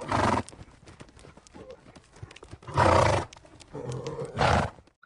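Horse hooves clip-clopping in quick, uneven strikes. The hoofbeats are broken three times by loud breathy blowing from the horse: at the start, about three seconds in, and near the end.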